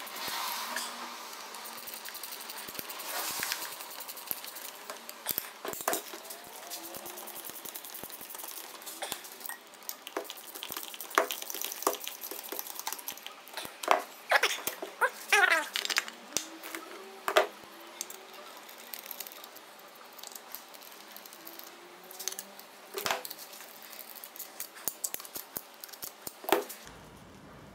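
Scattered metallic clicks, clinks and knocks of hand tools and parts being handled while a steering column is reassembled, with a brief fast rattle about halfway through.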